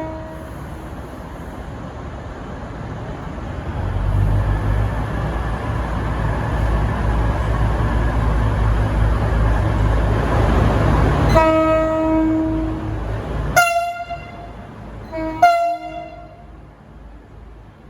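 V/Line VLocity diesel railcar pulling away, its engines' rumble building from about four seconds in. About two-thirds through comes one long horn blast, followed by three short toots as the rumble falls away.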